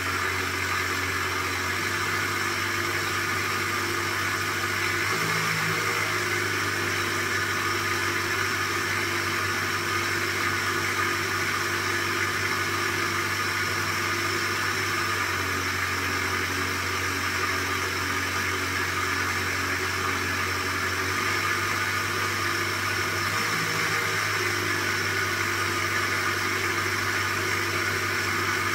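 Small homemade magnetic generator test rig running at steady speed on the bench, a constant machine hum with a hiss over it. Its hum shifts briefly in pitch twice, about five seconds in and again near twenty-four seconds, as a bulb load is switched on and off.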